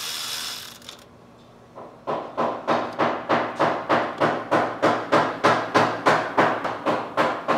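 A hammer beating on metal in steady, even blows, about three a second, starting about two seconds in and keeping on; each blow rings briefly. A short hiss comes just before the lull at the start.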